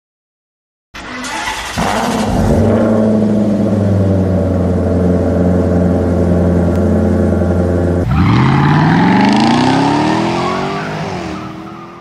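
Car engine sound effect. The engine cuts in suddenly about a second in and runs at a steady speed. About eight seconds in it revs up with rising pitch and a hissing, tyre-like noise, then fades away.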